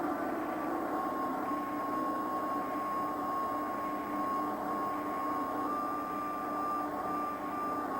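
Steady mechanical running noise with a continuous high whine held throughout and a lower steady hum beneath it.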